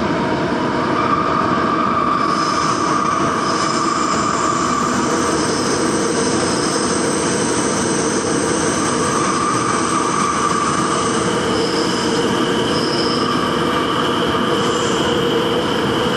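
Daejeon Metro Line 1 subway train running through a tunnel: steady wheel-on-rail running noise, with high squealing tones that swell and fade.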